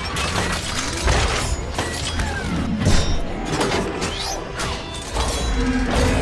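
Background music layered with dense robot-transformation sound effects: rapid mechanical clanks and clicks as parts lock together, with a few short whirring glides.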